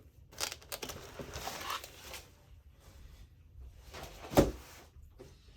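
Handling noises from a plastic storage folder for diamond paintings: rustling and light scraping in the first couple of seconds, then a single sharp knock about four seconds in as it is put down or closed.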